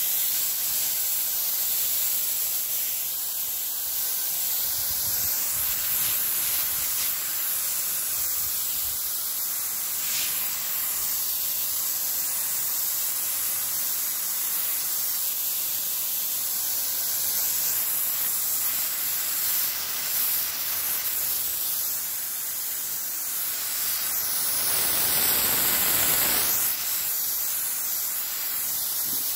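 Water spraying from a nozzle as a fine mist onto young pomelo trees and their leaves: a steady hiss. It grows louder and fuller for a couple of seconds about 25 seconds in.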